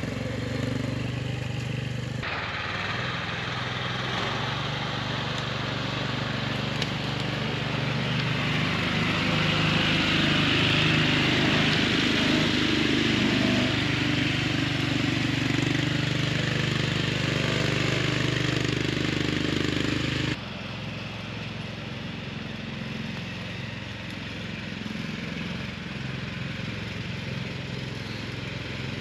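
Small engine of a homemade Pinzgauer-style 6x6 off-road buggy running steadily as it crawls over the forest floor. The sound jumps louder about two seconds in and drops abruptly about two-thirds of the way through.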